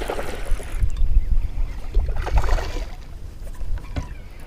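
Wind rumbling on the microphone on a kayak, with a short burst of water splashing about two seconds in, as a hooked bass is brought in.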